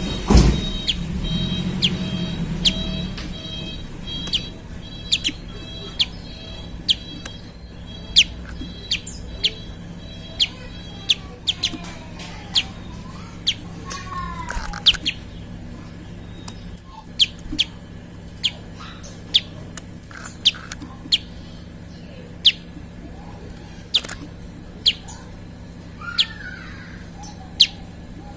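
Prinia (prenjak) calling: a long series of short, sharp high chirps, quicker at first, then about one a second. A thump right at the start, over a steady low hum.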